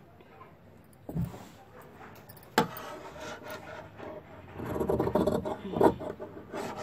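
Scissors cutting through printed dress fabric on a wooden table: a sharp knock about two and a half seconds in, then a quick run of crunching snips over the last couple of seconds.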